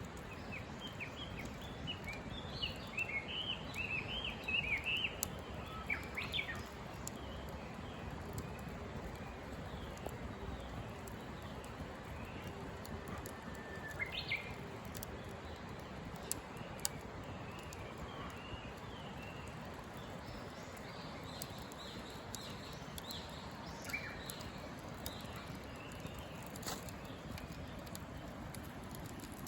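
Wild birds chirping and twittering in short high phrases, busiest in the first several seconds and sparser afterwards. A campfire crackles with a few sharp pops over a steady low rush.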